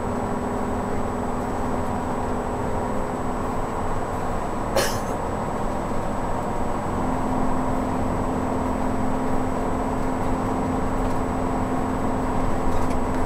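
Steady engine and road noise inside a motorhome cab driving on a wet highway. A single short, sharp sound cuts in about five seconds in, and the engine hum shifts slightly higher about seven seconds in as the RV speeds up.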